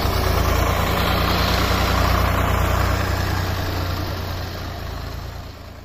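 Swaraj 744 FE tractor's diesel engine running steadily as it hauls a heavily loaded sugarcane trolley past, growing louder to about two seconds in and then fading away.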